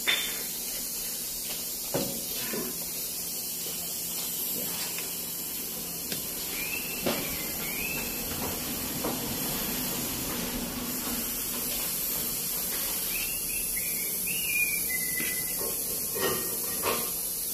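Steady hiss with a few sharp knocks and clinks scattered through it, from hand tools at work on a vehicle's front suspension. There are two short runs of high chirps, about a third of the way in and again about three quarters in.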